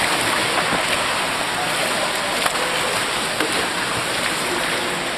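Steady hiss of rushing, splashing water with small splashes through it.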